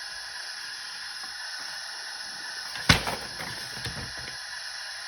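Small plastic model parts being handled: one sharp click about three seconds in and a fainter tick about a second later, over a steady hiss.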